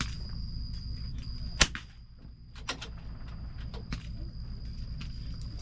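A single sharp .22LR rimfire rifle shot about a second and a half in, followed by two fainter cracks, over a steady high insect drone.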